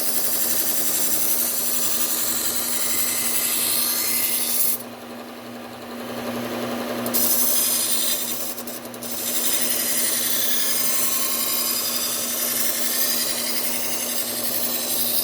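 Low-speed belt sander running with a steady motor hum while a chef's knife edge is ground against the abrasive belt, giving a hissing grind. The grinding stops for about two seconds around five seconds in, and briefly again a little later, as the blade is lifted off the running belt between passes.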